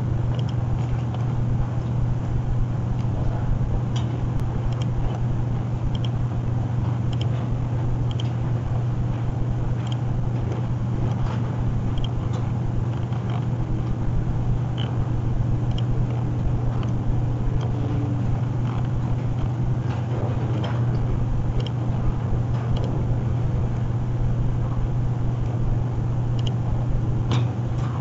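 Steady low hum over a background hiss, with faint computer-mouse clicks every second or two.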